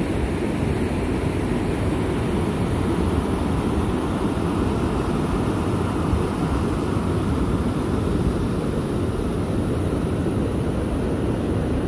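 Whitewater rushing steadily over granite ledges in rapids and a small waterfall, a constant, fairly loud noise.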